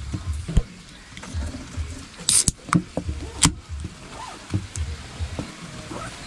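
Beer cans being cracked open: a sharp pull-tab pop with a short fizz about two seconds in, then a second crack about a second later.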